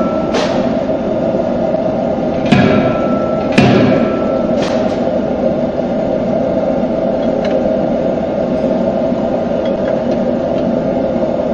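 Anyang C92K series CNC fully hydraulic closed-die forging hammer striking hot steel in the dies: four sharp blows in the first five seconds, each ringing briefly, over a steady machine hum. Only light ticks follow.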